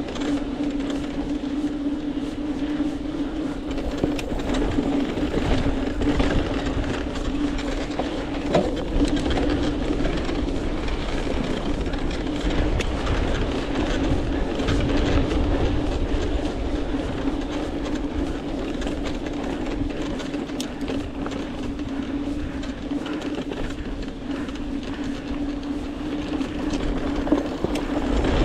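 Hardtail mountain bike rolling along a dirt trail: a continuous rumble and rattle, with a steady hum and scattered clicks.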